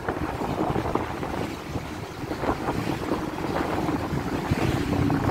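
Wind buffeting the microphone on a moving motorcycle, with the bike's engine and road noise as a steady rumble underneath.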